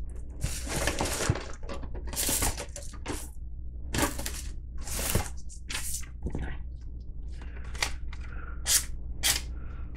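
Papers and packaging being rummaged through and handled on a cluttered desk: a string of short rustles, crinkles and scrapes, several of them sharp.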